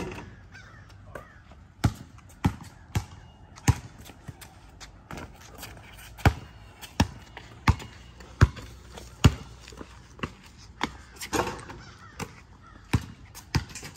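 A basketball bouncing on a concrete court pad: a long run of sharp thuds, one every half second to a second, uneven in spacing and strength.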